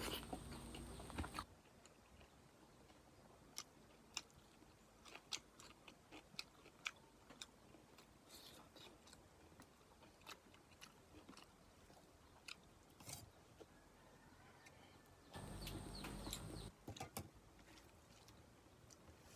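A person chewing food close to the microphone: quiet, scattered wet mouth clicks and smacks. Two short stretches of louder noise come in, one at the very start and one about three quarters of the way through.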